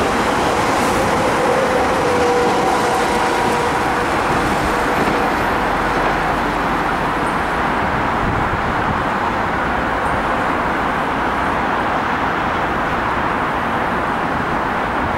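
SNCF Z 6400 electric multiple unit pulling away on the rails, a steady rushing rumble of wheels and running gear. A steady motor whine fades out after the first few seconds as the train draws away.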